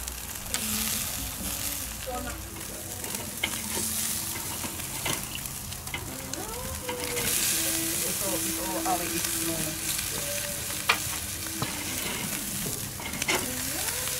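Meat and corn sizzling over hot charcoal on a kettle grill, a steady hiss, with a few sharp metallic clicks of tongs against the grill grate.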